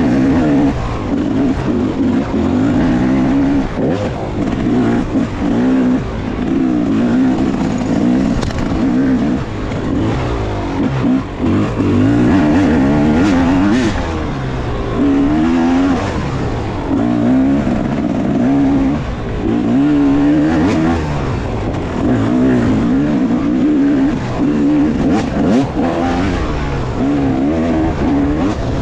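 Yamaha YZ250 two-stroke dirt bike engine revving up and down repeatedly as the throttle is worked on and off through the trail, with occasional knocks and clatter from the ride.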